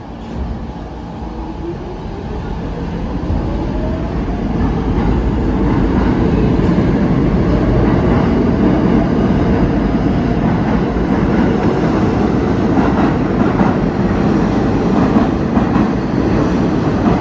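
R46 subway train pulling out of the station. A whine rises in pitch over the first few seconds as it accelerates, then the loud running noise of wheels on rail builds and holds as the cars pass.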